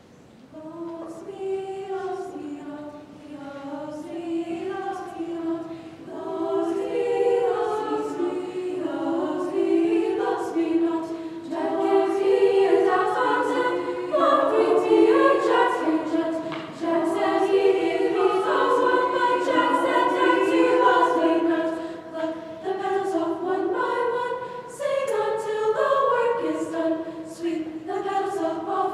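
A girls' choir singing, coming in about a second in and building in loudness over the first dozen seconds.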